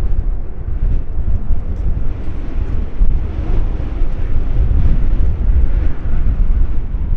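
Low rumble of a taxiing Airbus A330-200F freighter's jet engines at low power, heavily buffeted by gusting wind on the microphone.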